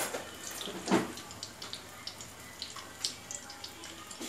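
Vegetable balls deep-frying in a kadhai of hot oil, sizzling with many small crackles and pops. There is a dull knock about a second in.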